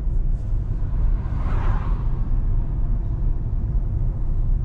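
C8 Corvette driving at a steady cruise: a low, steady engine and road rumble. A brief whoosh swells and fades about a second and a half in.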